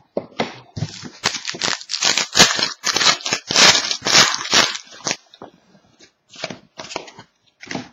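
Crinkling and rustling of trading-card packaging and cards being handled, dense and loud for the first few seconds, then thinning to scattered clicks and rustles.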